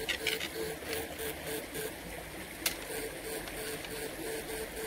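Electrofishing rig buzzing in short, even pulses, about four a second, over the rush of a shallow rocky stream, with one sharp click a little under three seconds in.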